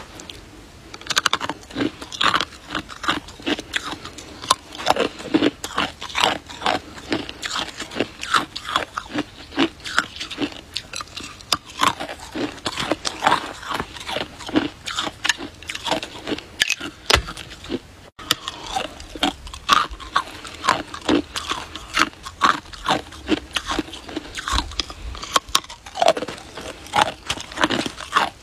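A person biting and chewing an icicle: a dense, irregular run of sharp crunches as the hard ice breaks between the teeth.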